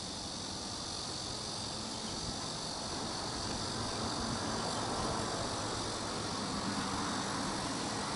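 Distant twin-engine wide-body jet airliner on final approach, its engine noise a broad rush that grows louder through the middle, over a steady high-pitched buzz of insects.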